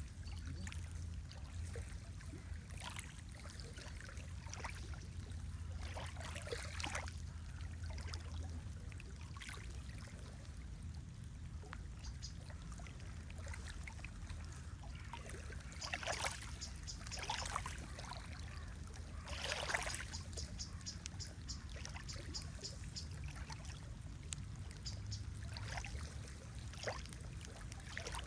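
Lake water lapping and sloshing in small irregular splashes over a steady low rumble, the biggest sloshes a little past the middle.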